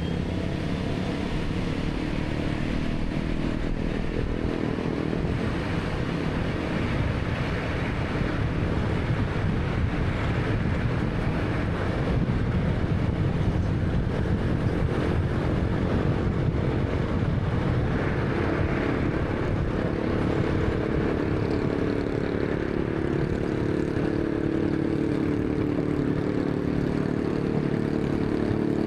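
A 2013 Honda Fit's 1.3-litre engine running, under steady road and tyre noise. The engine note shifts slightly in pitch in the second half.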